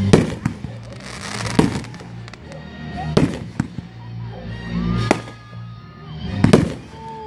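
Fireworks bursting: five loud bangs about a second and a half apart, with crackling and short whistles between them, over music playing underneath.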